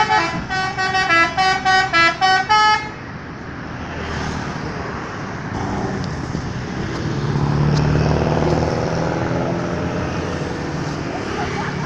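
Bus telolet horn, a multi-tone musical horn, playing a quick run of short repeated notes that stops about three seconds in. After it, bus engine and road noise, swelling around eight seconds in.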